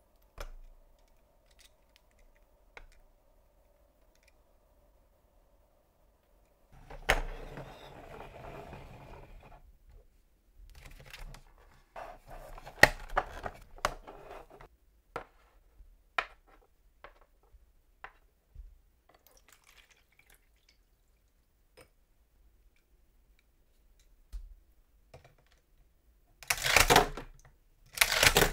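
Hard plastic clicks, knocks and rattles as a toy fire truck's grey plastic ladder is handled, after a quiet start. The loudest and longest rattles come near the end, as a toy car is run along the raised ladder.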